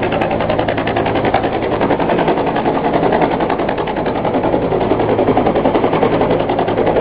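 Low-flying two-bladed helicopter passing overhead: rapid, even rotor beating over a steady engine hum.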